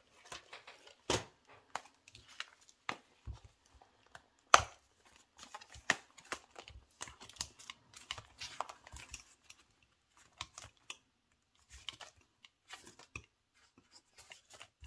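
Paper and laminated challenge sheets being handled on a table: scattered rustles and crinkles with light taps, the sharpest about four and a half seconds in.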